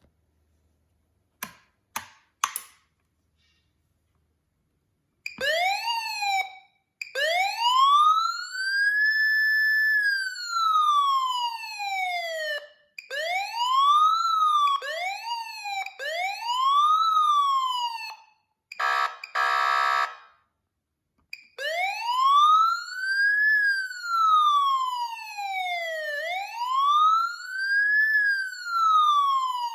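Code 3 Z3 electronic siren running through its tones. A few short clicks come first. Then a wail climbs, holds at the top and falls, followed by a quicker rising and falling tone. A short buzzy horn blast comes about two-thirds of the way in, and a slow wail follows.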